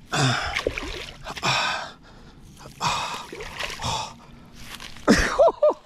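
A man breathing hard in three heavy gasping breaths after fighting a big snook, then a few short wordless voiced sounds near the end.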